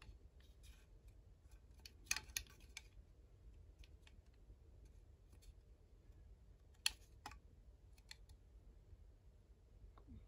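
Near silence with a few faint clicks and taps, two about two seconds in and two about seven seconds in, from a glass drink bottle being handled in long-nailed fingers.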